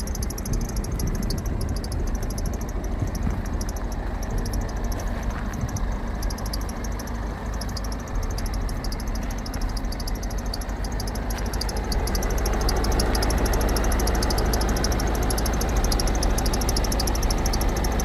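BMW 520 (G30) engine idling with its worn belt-tensioner roller whistling hard: a high, rapidly pulsing whistle over the engine's running. It grows louder about two-thirds of the way through.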